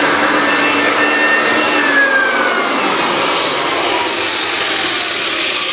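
Floor edger sanding down a high spot on the subfloor, its motor running with a steady whine. About two seconds in the whine begins to fall slowly in pitch as the motor winds down.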